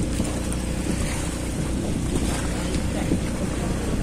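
Steady low drone of a basnig fishing boat's engine, with water washing against the hull and wind on the microphone.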